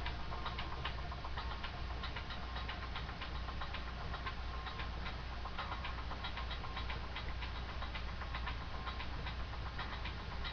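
Steady low hum with faint, irregular clicks and ticks throughout.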